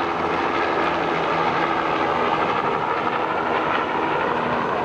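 Cessna 172's piston engine and propeller running steadily, heard from inside the cabin.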